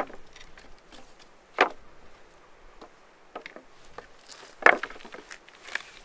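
Several sharp knocks at uneven intervals, the loudest two about a second and a half and nearly five seconds in, with fainter clicks between.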